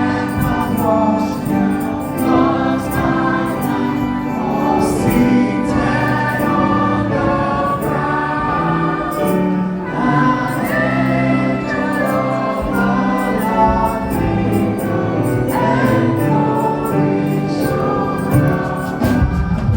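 Gospel choir singing a Christmas carol in sustained, overlapping harmony over steady low instrumental notes, with a light regular percussion tick.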